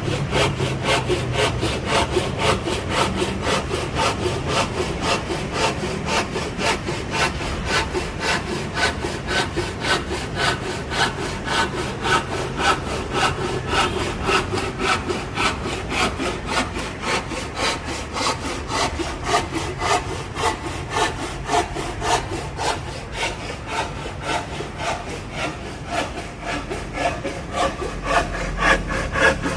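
Hand saw cutting through wood in steady back-and-forth strokes, about three a second.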